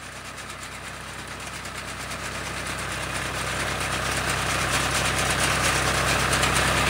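John Deere tractor's diesel engine running steadily while it drives a front-mounted reaper cutting paddy, growing steadily louder.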